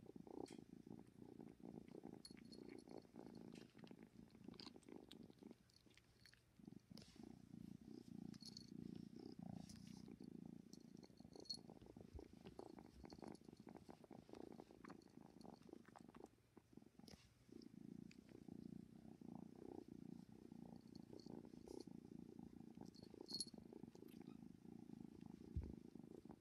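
Ten-week-old kitten purring steadily in a low pulsing rumble, with short breaks about six and sixteen seconds in. A few small sharp clicks sound over it.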